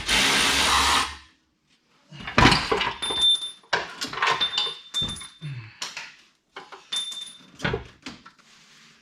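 Power tool running in short bursts while unbolting a car's subframe: about a second near the start and again about two seconds in, with a thin whine. Between and after the bursts come metal clanks and knocks of tools and parts.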